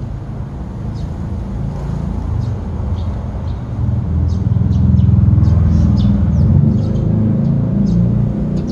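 Eurasian tree sparrows giving short, repeated chirps from a flock, over a loud low rumble that swells in the middle and eases near the end.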